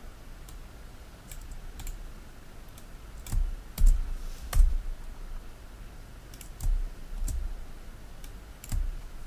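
Computer keyboard and mouse clicks used for cutting and pasting text: scattered sharp clicks with a few heavier taps that thud through the desk.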